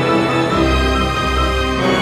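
Instrumental background music: sustained tones over a deep bass line that changes note every half second or so.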